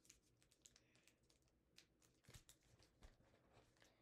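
Faint, irregular crinkles and clicks of a sheet of origami paper being folded and creased by hand.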